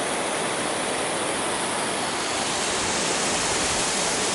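Steady rushing of water, an even hiss without a break.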